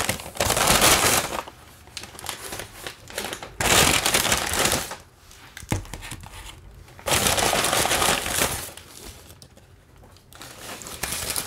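Paper fast-food bag and paper food wrapper crinkling and rustling as they are handled close to the microphone, in three loud bursts with quieter rustling between.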